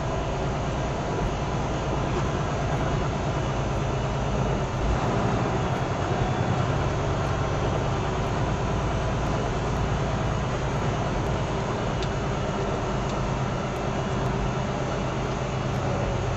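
Steady drone of a truck's engine with road noise, heard inside the cab while driving.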